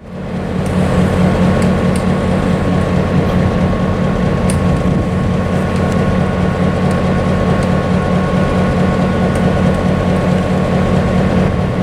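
Diesel locomotive running steadily: a continuous low engine drone with a steady higher whine above it and a few faint clicks.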